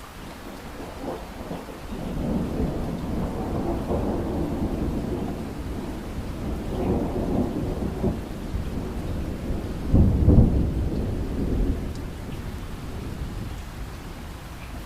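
Thunder rolling over steady rain: a low rumble builds about two seconds in, swells to its loudest peak about ten seconds in, then fades away.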